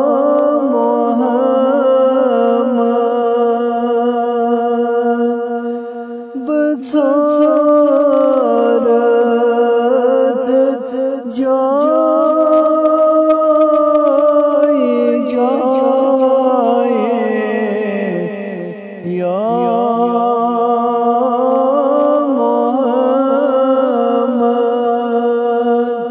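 A man singing a naat, a devotional Islamic poem, unaccompanied by instruments, with long held, ornamented notes over a steady drone.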